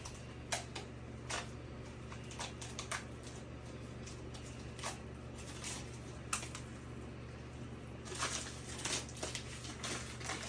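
Plastic wrapper of a dog chew bone being torn open and handled, giving irregular light crackles and clicks, busier near the end, over a steady low hum.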